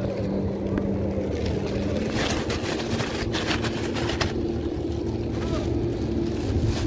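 A steady low engine drone with a held hum that steps slightly in pitch. A quick run of sharp clicks comes about two to four seconds in.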